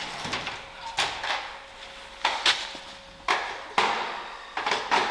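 Hands and a cloth rag rubbing and scraping over a brake caliper clamped in a bench vise: a string of short scraping, rustling strokes, roughly one a second.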